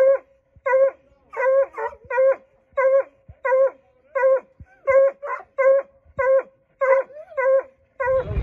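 A deer-hunting hound shut in a truck's metal dog box barking over and over: short, same-pitched barks at about two a second.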